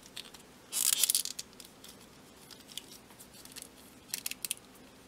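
Small plastic action figures being handled: a brief scraping rustle about a second in, then a few small quick clicks of plastic near the end.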